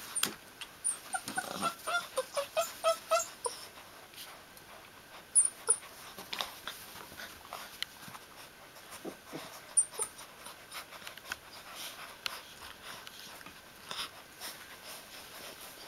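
Newfoundland puppies whimpering, a quick run of short, high squeaky calls in the first few seconds, with scratching and scrabbling as they dig at a metal water bowl in wood shavings and a few sharp knocks around the middle.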